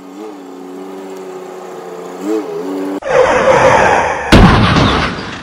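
A pickup truck's engine running steadily, its pitch dipping and rising briefly twice. About three seconds in it cuts abruptly to a loud whooshing sound effect, and a heavy slam-like boom about a second later is the loudest sound, then fades.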